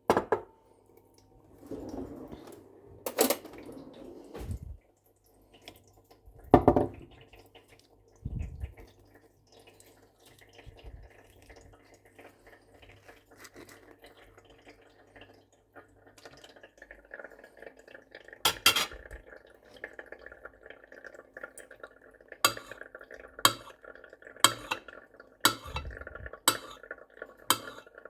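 Pans and utensils being handled in a kitchen: scattered knocks and clinks, then about two-thirds in, a steady background sound under sharp taps about once a second.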